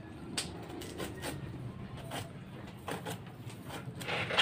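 Knife and hands working an unripe soursop: a few scattered short scrapes and clicks, over a low steady hum.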